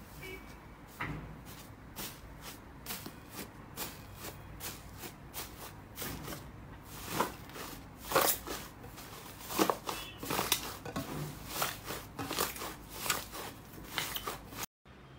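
Slime being squeezed and poked by hand, giving an irregular run of sticky clicks and small air-bubble pops, a few louder ones near the middle.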